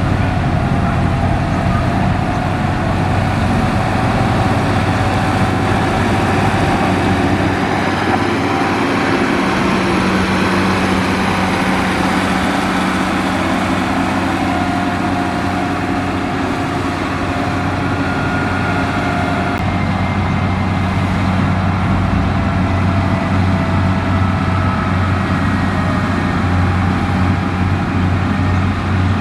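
Heavy construction machine's diesel engine running steadily, with a low hum and faint whining tones above it.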